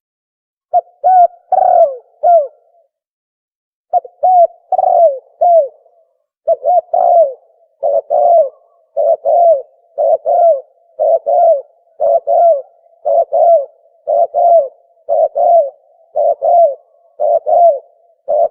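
Tukmo dove cooing call used as a hunting lure: short, low, hollow coo notes in clusters of two or three, repeated about once a second. The calling starts just under a second in and pauses briefly around three seconds in, then continues steadily.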